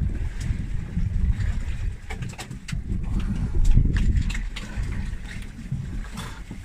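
Wind buffeting the microphone, a loud uneven low rumble. Light scattered clicks and taps come mostly in the middle stretch as hooks are worked into a baitfish on a plastic cutting board.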